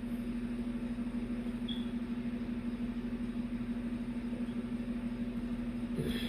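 A steady low hum with no change in pitch, over faint background noise.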